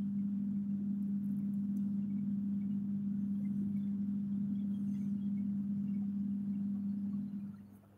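A steady low hum, one held tone, that fades away near the end.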